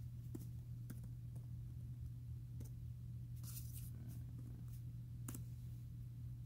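Faint, scattered computer keyboard clicks as a web address is typed, over a steady low hum.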